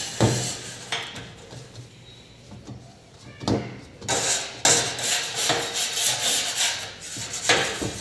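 Hands setting balls of cookie dough on a metal baking tray on a wooden table: several sharp knocks and scraping rubs as the tray and hands shift on the tabletop.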